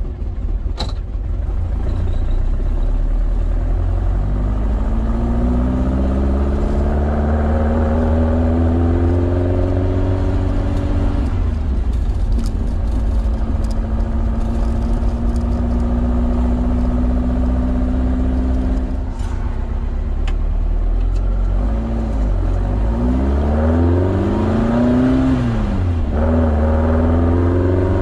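Volkswagen Beetle's 2054cc stroker air-cooled flat-four on twin Weber IDF 44 carburettors, heard from inside the cabin as the car pulls away and accelerates through the gears. The engine pitch climbs, holds steady at a cruise, then drops and climbs again several times with the gear changes near the end.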